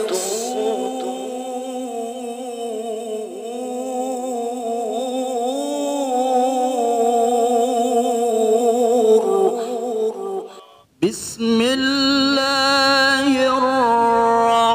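A male qari reciting the Qur'an in the melodic tilawah style, singing ornamented variations on the maqam: one long phrase with a wavering, embellished pitch. It breaks off briefly about eleven seconds in, then a new held phrase begins.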